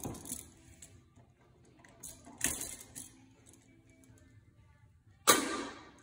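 Small metallic clicks and clatter from handling a light switch, its screws and a screwdriver. About five seconds in comes one loud sharp clack, like a tool or part being set down hard, that dies away quickly.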